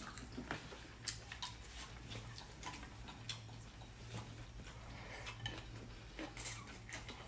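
Faint scattered clicks of chopsticks and spoons against small ceramic bowls during a meal, over a steady low hum.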